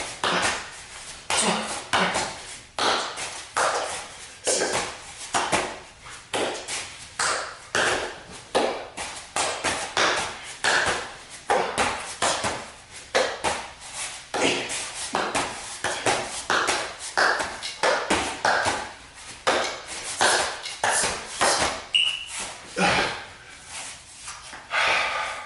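Hands slapping BlazePod reaction-training light pods as fast as they light up: a steady run of quick taps, about one and a half a second, with short pings.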